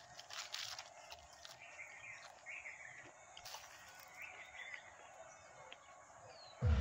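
Faint outdoor ambience with a few short bird chirps over a steady background hiss. A few soft clicks near the start come from a tender mango leaf being bitten, and a sudden low rumble cuts in at the very end.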